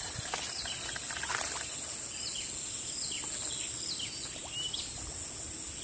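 A steady high-pitched insect drone, like crickets or cicadas, with a bird repeating short whistled notes about once a second.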